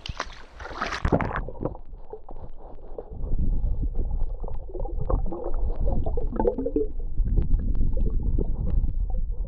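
Stream water splashing and gurgling close to the microphone as a trout is let go by hand, with a splash in the first second, then a low rumble and small clicks of water and handling right at the microphone.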